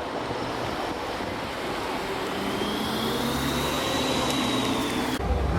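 Steady road-vehicle and traffic noise with a faint high whine that rises slightly midway. Near the end the sound cuts abruptly to a heavier low rumble of a passing train.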